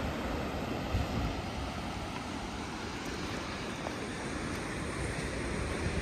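Surf washing and breaking on a rocky shore in a steady rush, with wind rumbling on the microphone.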